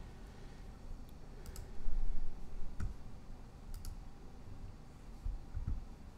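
A few scattered sharp clicks from a computer mouse and keyboard being worked at a desk, with a cluster of low thuds about two seconds in.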